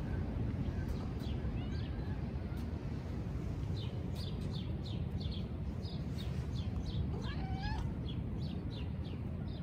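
A black-and-white street cat meows once, a short call that rises and falls, about seven seconds in. Underneath runs a steady low outdoor rumble, and many short bird chirps come from about four seconds in.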